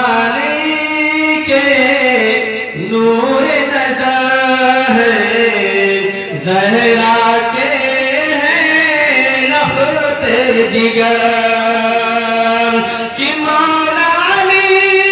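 A man singing a naat, the Urdu devotional poem in praise of the Prophet Muhammad, solo into a microphone, drawing out long held notes that glide from one pitch to the next with short breaks for breath.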